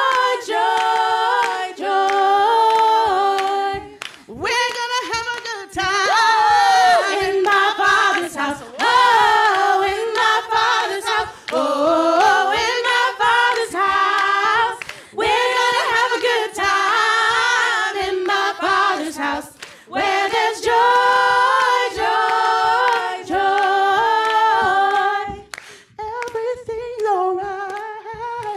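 Women singing a worship song a cappella in harmony, with hands clapping along in time.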